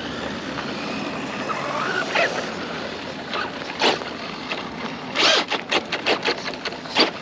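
Traxxas Rustler electric RC truck driving on gravel: a rising motor whine about two seconds in, then short loud rasping bursts of tyres scrabbling on gravel, the biggest about five seconds in.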